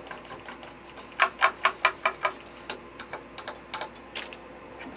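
A quick run of six sharp clicks about a fifth of a second apart, then a few lighter scattered ticks: small hard objects tapping as paint is mixed for the airbrush.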